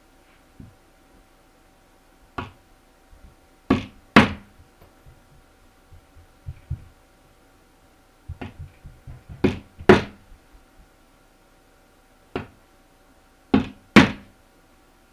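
A hammer driving nails through the edge of a beaver hide into a wooden stretching board. About eight sharp knocks, mostly in close pairs half a second apart, with a few light taps in between.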